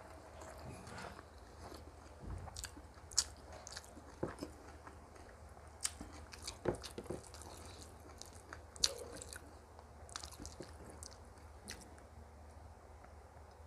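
Close-up eating sounds: chewing and crunching food, with scattered sharp clicks and smacks, busiest between about three and nine seconds in.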